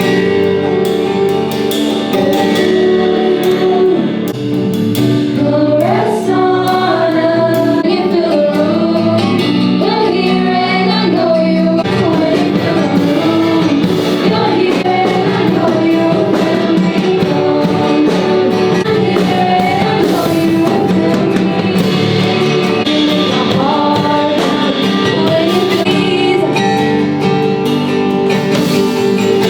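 Contemporary worship music: voices singing a song over a band accompaniment, steady throughout.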